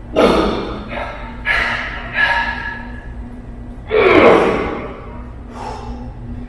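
A man's forceful, gasping breaths and strained exhales as he grinds through heavy squat reps under a safety squat bar, about six in a row. The longest and loudest comes about four seconds in, as he drives up out of the bottom of a rep.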